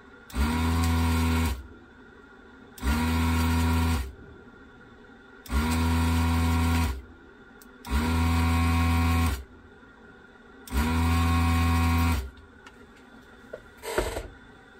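Electric desoldering gun's vacuum pump switching on and off in five short bursts of about a second and a half each, a steady motor hum, as it sucks molten solder off capacitor joints on a small circuit board. A brief knock just before the end.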